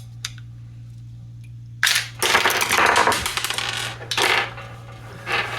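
Plastic Ford Transit key fob case being prised apart and handled: a few faint clicks, then about two seconds in a loud run of scraping, clicking and clattering of hard parts, which eases off and starts again near the end. A steady low hum runs underneath.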